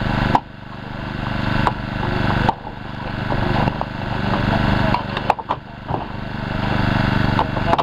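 Small petrol engine of a hydraulic rescue-tool power unit running steadily. Its level drops sharply about half a second in, again at about two and a half seconds and near six seconds, each time building back up over a couple of seconds. A few sharp clicks come around five seconds in.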